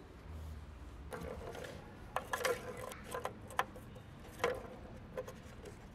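Plastic ball knocking around the tracks of an orange plastic cat tower-of-tracks toy as cats bat at it: a run of irregular, sharp plastic clicks and knocks, most of them in the middle.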